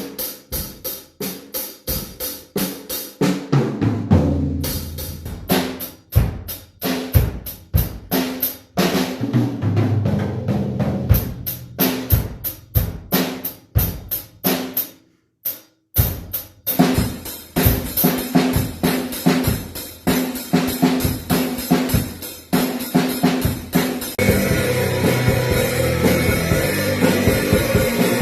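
Drum kit being played: a run of uneven strikes on bass drum, snare and cymbals, with a brief stop a little past halfway. Near the end a steady musical backing with bass comes in under the drumming.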